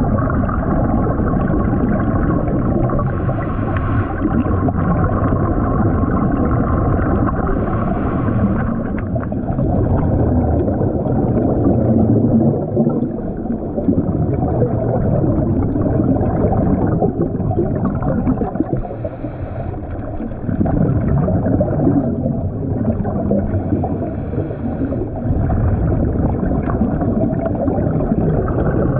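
Scuba dive heard underwater through a camera housing: a steady muffled rumble of water and bubbles, with the hiss and gurgle of a scuba regulator's breaths and exhaust bubbles coming and going every few seconds. A faint steady hum runs underneath and stops about nine seconds in.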